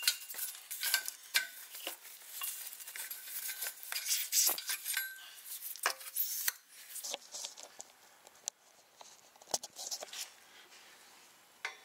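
Clinks, clicks and rattles of tools and small parts being handled, dense for the first six or so seconds, then only a few scattered clicks.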